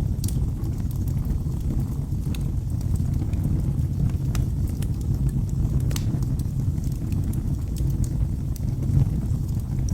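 Wood fire burning in a fireplace: a steady low rumble of flames with scattered sharp crackles and pops.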